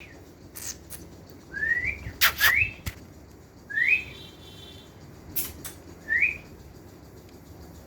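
Pet parrot whistling: four short whistles that each sweep upward, spaced irregularly, with several sharp clicks between them, the loudest pair about two seconds in.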